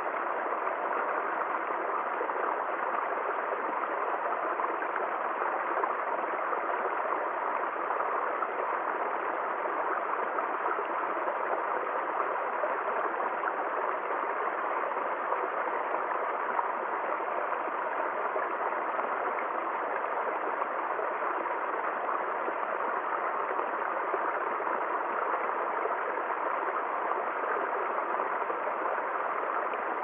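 Small woodland stream running and splashing over a low rock-and-log step into a shallow pool: a steady, even rush of water that does not change.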